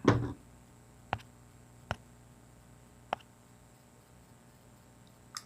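Metal clicks from a stainless Colt Defender .45 ACP pistol being handled: a louder clack at the start, then three single sharp clicks about a second apart, and another clack near the end.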